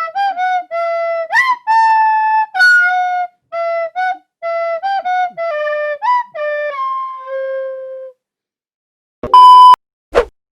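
A flute-like wind-instrument melody: a short tune of about a dozen notes, some sliding up into the next, ending on a held low note. After a short pause comes a brief, very loud steady beep, then a short blip near the end.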